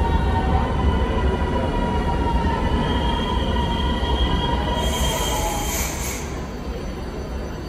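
Milan Metro Line 1 train pulling into an underground station: a loud rumble of wheels on rails with steady whining tones, easing off as the train slows. There is a brief high hiss about five seconds in.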